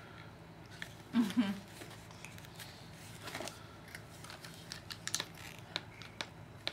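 Scattered light clicks and taps of small objects being handled and rattled, with a short vocal sound about a second in.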